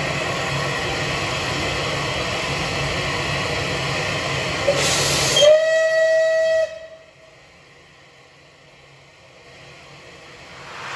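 Bulleid West Country class steam locomotive 34092 City of Wells hissing steam. About five and a half seconds in it gives one whistle blast of about a second. The sound then drops away, and steam hiss builds again near the end.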